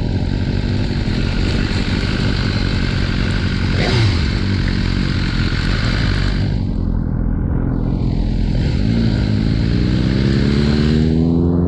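Motorcycle engine running under a steady rush of wind and road noise, heard from the rider's own bike; a short knock comes about four seconds in, and from about nine seconds the engine note climbs steadily as the bike accelerates.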